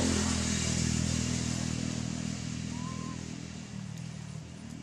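An engine running steadily and fading away as it recedes.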